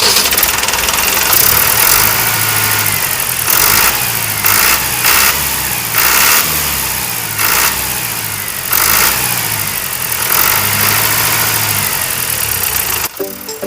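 A small engine running, its low drone shifting in pitch, with brief louder surges every second or so.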